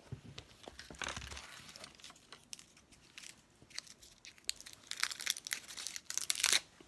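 A lollipop's wrapper being crinkled and pulled off by hand: irregular crackling rustles, densest and loudest near the end.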